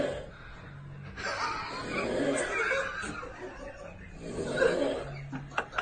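Stifled laughter and snickering from people trying to keep quiet, with a sleeping man's low snore near the start and again about five seconds in. A few sharp clicks come near the end.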